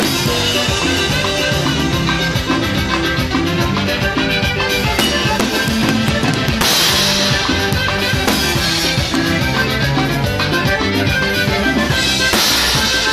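Live band playing cumbia, with the drum kit and cymbals prominent in a steady groove; the cymbals ring out brighter about seven seconds in and again near the end.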